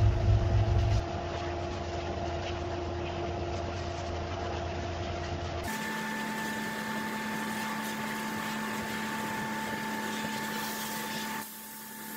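Sandblasting booth running: a steady hiss of the air-and-sand blast over a machine hum, its tone shifting abruptly at about one and six seconds in.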